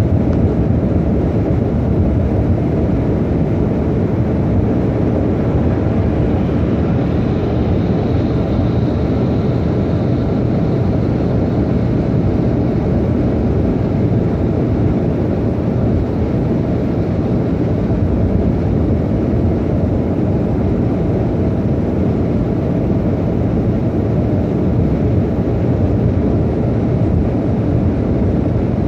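Steady road noise inside a car cruising at highway speed: tyre and engine noise, heaviest in the low end.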